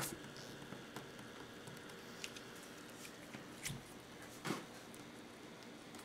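Faint handling sounds as hands grip, twist and strain at a heavy 1/0 battery cable to pull its crimped ring terminal off: soft rubbing with a few small clicks, and a short louder rustle about four and a half seconds in. The terminal holds.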